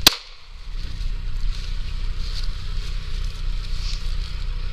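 A single sharp shot right at the start, a 9 mm pistol finishing off a wounded hog. After it comes a steady low rumble of an idling engine.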